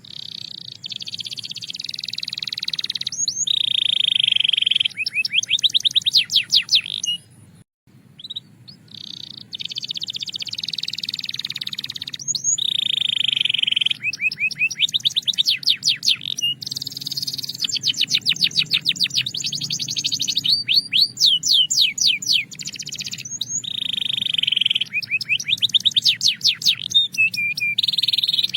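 Belgian canary singing a long song of held whistled tones and fast trills and rolls of rapidly repeated notes, with a brief pause about eight seconds in.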